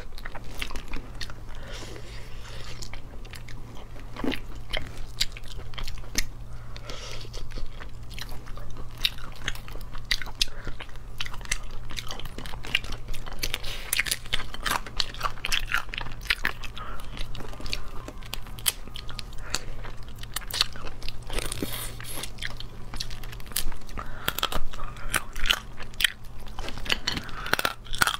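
Eating cooked crustaceans at close range: shells cracking and crunching as they are bitten and pulled apart by hand, with chewing in between, many short sharp cracks in quick succession.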